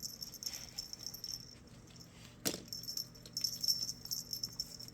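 Faint metallic jingling from a feather cat toy being played with by a ferret, coming and going in short clusters. There is one sharp click about halfway through.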